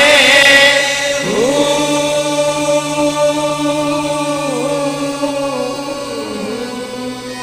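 Background music: a singer holds long, drawn-out notes of a Punjabi Sufi devotional song, with slow pitch bends, over a steady low drone.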